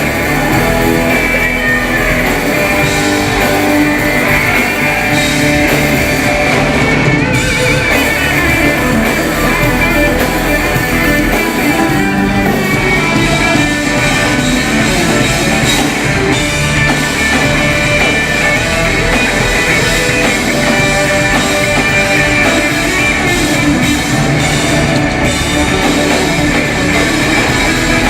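A live rock band playing loudly, with electric guitar and a drum kit.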